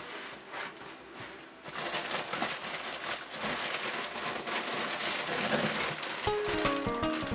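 Plastic food packets crinkling and rustling as they are shifted on a shelf and a bag of dry pasta is pulled out. Music comes in near the end.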